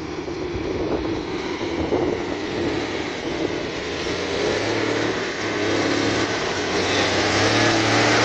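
Diesel engine of a Peterbilt semi truck running as the truck drives closer, getting steadily louder toward the end, with a low steady hum coming in about halfway.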